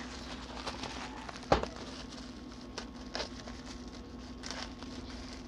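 Plastic parcel wrapping rustling and crinkling as it is handled and cut open with scissors, with scattered short crackles and one sharp tap about a second and a half in.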